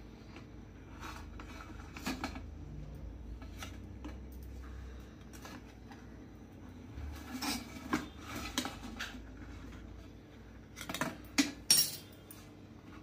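A metal spoon scraping and clinking against a stainless-steel idli plate as steamed idlis are prised out of the moulds. The clinks come in small clusters, the sharpest near the end.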